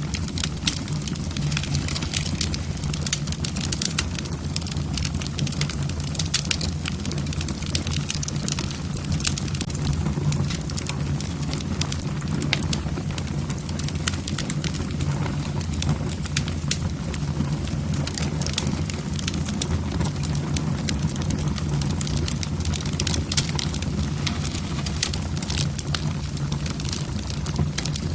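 Log fire burning in a fireplace: wood crackling and popping in quick irregular snaps over a steady low rumble of the flames.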